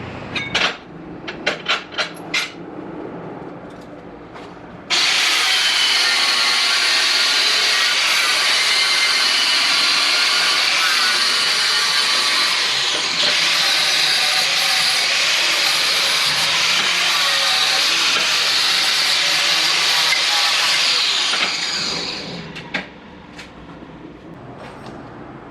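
A power tool cutting metal, starting abruptly about five seconds in, running steadily and loudly with a harsh high-pitched sound for about sixteen seconds, then winding down. A few sharp clicks and knocks come before it.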